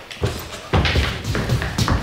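A run of heavy thumps and taps, the loudest about three-quarters of a second in and again near the end, with music underneath.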